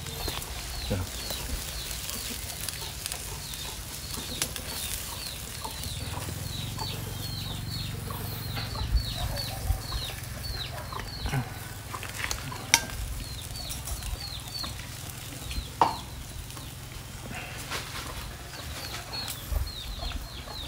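Chicks peeping: runs of short, high, falling chirps repeated throughout, with a few sharp clicks in between.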